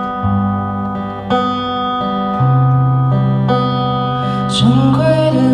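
Acoustic steel-string guitar playing picked chords live, moving to a new chord about once a second. A man's singing voice comes in about four and a half seconds in.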